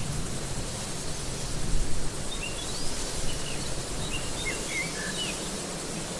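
Outdoor ambience: a steady hiss with a low rumble underneath, and a scatter of short, high bird chirps through the middle.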